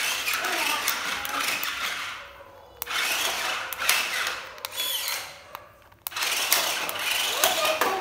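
Small electric drive motors and plastic gearboxes of a toy RC stunt car whirring in three runs as it is driven over a stone floor, stopping briefly about two seconds in and again about five and a half seconds in.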